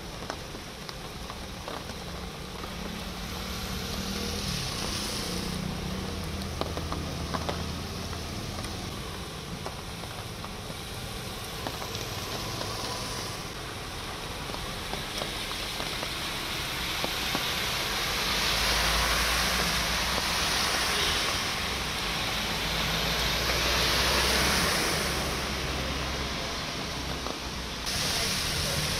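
Traffic driving through a flooded road: engines running and tyres throwing up water in a steady splashing hiss, swelling louder as vehicles pass about two-thirds of the way through.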